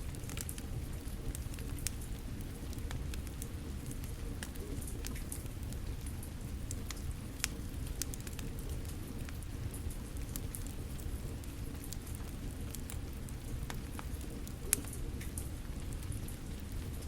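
Steady rain falling together with a fire crackling: scattered sharp pops over an even hiss, with a louder pop about seven seconds in and the loudest near the end.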